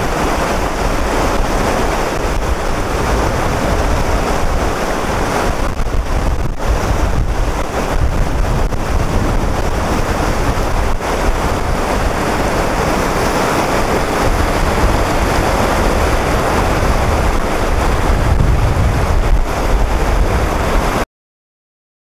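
Whitewater rapids of a river running high and stiff, a steady loud rush of water, with wind rumbling on the microphone. The sound cuts off suddenly near the end.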